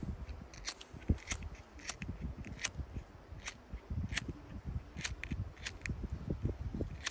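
Zippo emergency fire kit's flint-wheel sparker struck over and over, a short sharp scrape about every three-quarters of a second, throwing sparks at tinder that has not yet caught.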